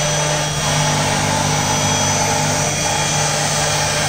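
CNC router spindle running steadily and cutting a groove into the sheet, a constant high whine over a rough grinding noise.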